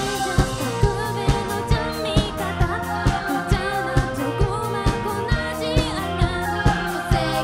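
A live band playing a pop song, a voice singing over it, on a steady beat of about two strikes a second.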